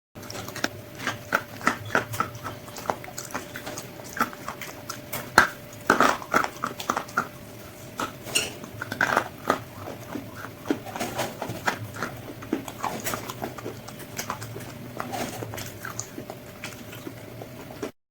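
KFC spicy fried chicken's crispy coating crunching as it is bitten and chewed close to the microphone: a dense, irregular run of crisp cracks and crackles, busiest about five to seven seconds in. A faint steady hum runs underneath.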